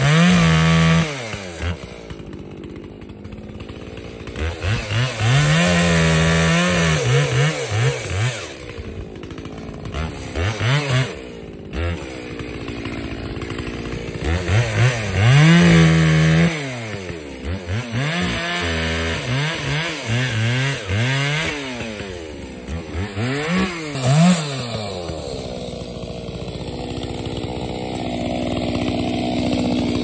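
Gas chainsaw cutting wood, revving to full throttle in short bursts and dropping back to idle between them, many times over.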